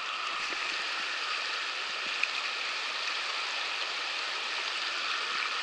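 River water running over a shallow, rocky riffle: a steady rushing hiss of moving water.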